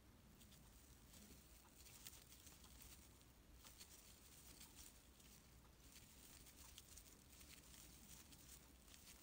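Near silence, with faint scattered soft rustles and ticks from a crochet hook pulling fuzzy acrylic scrubber yarn through stitches.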